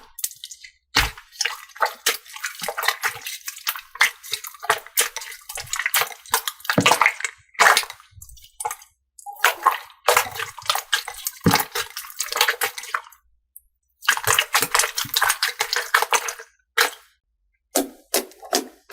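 Liquid slime being squished and worked, giving dense runs of wet clicks and pops. These come in several short stretches, each broken off by a sudden silence.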